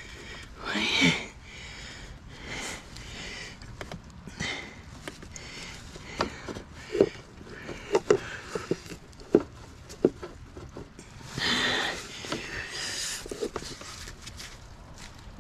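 A man sniffing and breathing hard while working bent under a car's cowl, with a short grunt about a second in. Scattered sharp clicks and light knocks of hands and parts being handled in the engine bay, mostly in the middle of the stretch.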